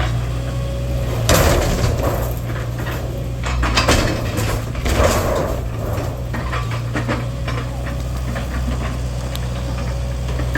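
Excavator's diesel engine running steadily while debris is handled, with loud crashes and clanks about a second in, around four seconds and around five seconds in, and smaller knocks between.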